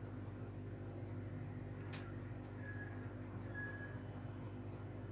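Pencil scratching lightly on drawing paper in short strokes, with one sharper tap about two seconds in, over a steady low hum.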